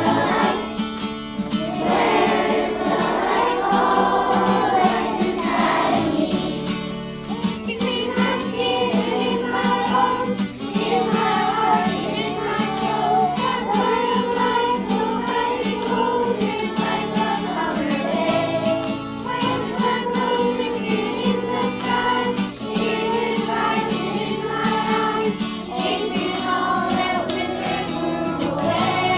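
A choir of young elementary-school children singing together over an instrumental accompaniment. It is a virtual choir, with separate home recordings mixed into one.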